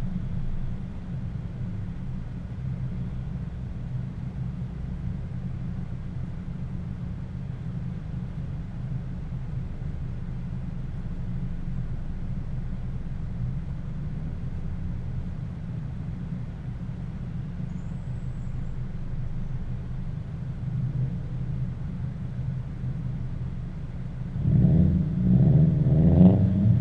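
Cars cruising along a road: a steady low rumble of engines and driving. Near the end an engine revs up louder as a car accelerates.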